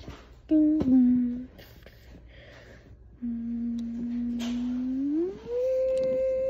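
A person humming to imitate a subway train's motor: a short hum about half a second in, then a steady low note that glides smoothly up to a higher held note, like an electric train pulling away.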